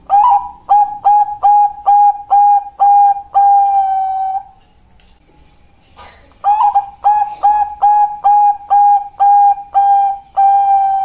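Zebra dove (perkutut Bangkok, the Thai-bred song line) cooing in two bouts, the second starting about six and a half seconds in. Each bout is a run of about eight short, evenly spaced, clipped coos that ends in one longer held coo.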